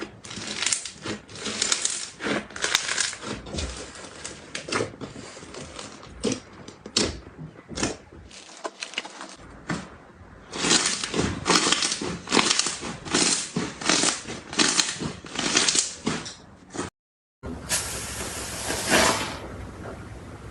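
Hands playing with slime: a run of sticky clicks and crackles as it is pressed, poked and stretched, with a brief cut to silence about seventeen seconds in.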